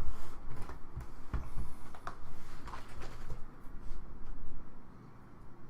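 Cardboard card boxes being handled: a series of light knocks and rustling, thinning out about three and a half seconds in.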